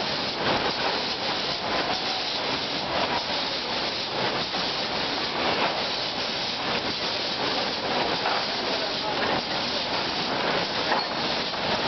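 Lead Technology MKH-5 end-load cartoner running at continuous speed as it conveys and cartons tuna cans. It gives a steady, dense mechanical clatter of many rapid small clicks, without a break.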